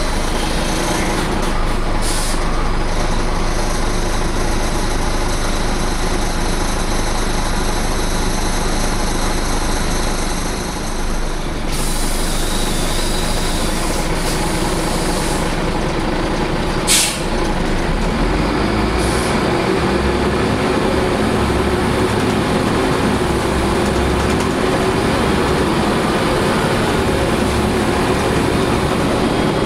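Scania CN94UB OmniCity city bus heard from inside the passenger cabin while driving: steady diesel engine and road noise, with the engine note rising in the second half. About 17 seconds in there is a short sharp air hiss.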